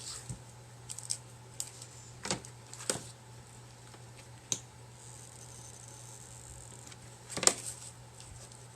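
Scattered small clicks and knocks from hands working a hot glue gun, rope and a clay pot, the loudest one near the end, over a faint steady low hum.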